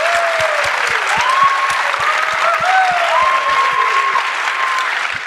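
Audience applauding, with a few drawn-out calls rising over the clapping.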